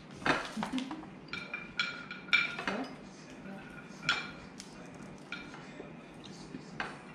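Cutlery and dishes clinking at the table: a string of separate clinks, several ringing briefly.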